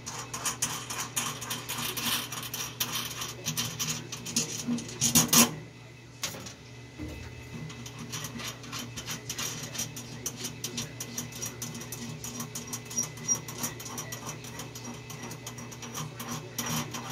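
Small clicks and rattles of parts and wiring being handled and pulled apart under a truck dashboard. They are dense for the first five seconds, with a louder clatter at about five seconds, then turn lighter and sparser, over a steady low hum.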